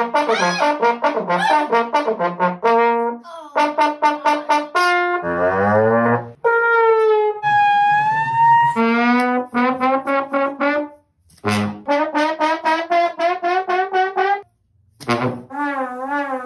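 Brass-sounding notes played in quick staccato runs, with a downward slide about five seconds in, a few longer held notes, and wobbling notes near the end.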